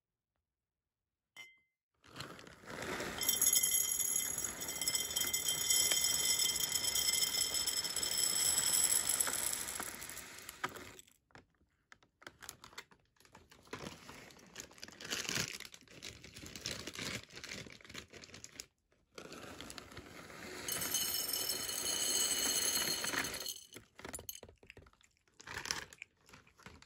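Dry cat kibble poured into a glass jar: a long rattling pour of about eight seconds with the glass ringing, then scattered clinks, then a second, shorter pour about twenty seconds in.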